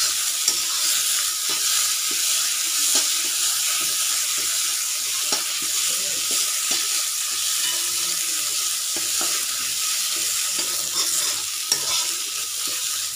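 Ground sweet corn paste sizzling in hot oil in a kadhai while a metal spatula stirs and scrapes it, roasting it. The spatula knocks sharply against the pan now and then.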